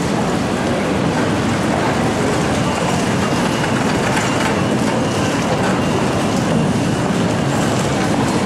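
Steady rumble of a train moving on the tracks of a large station, held at one level throughout.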